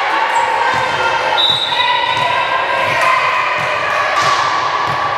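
Volleyballs being hit and bouncing on a hardwood gym floor: a string of irregular thuds echoing in the gymnasium, with players' voices calling over them.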